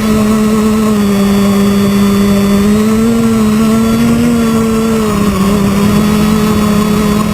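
Quadcopter's electric motors and propellers buzzing steadily in flight, the pitch drifting up and down slightly as the throttle changes.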